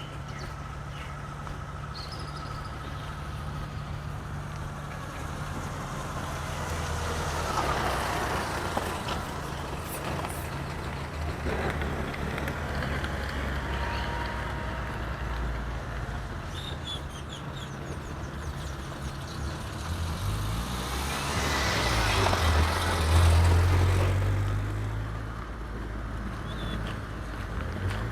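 Motor vehicles passing on a street over a steady low engine hum: one goes by about a quarter of the way in, and a louder one near three quarters through.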